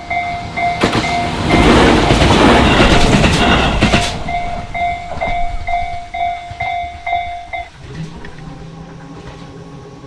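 Japanese level-crossing warning bell ringing its repeated electronic kan-kan tone, about two and a half strikes a second, while a train passes quickly with wheels clattering over the rails for two or three seconds. The bell stops near the end, after the train has cleared.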